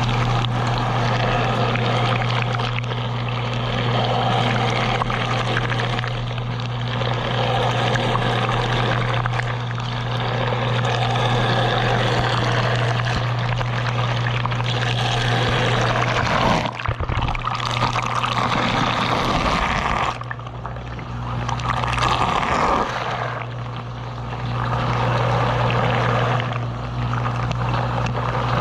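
A running Whirlpool dishwasher heard from inside the tub: the wash pump motor's steady hum under water spraying and splashing inside, from a main wash arm gushing water out of its side. The hum and spray drop out briefly twice past halfway.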